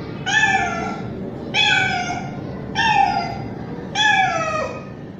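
Young male street cat meowing loudly, four calls spaced a little over a second apart, each one dropping in pitch at the end.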